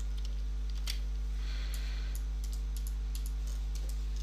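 Scattered clicks from a computer keyboard and mouse, more of them in the second half, over a steady low electrical hum.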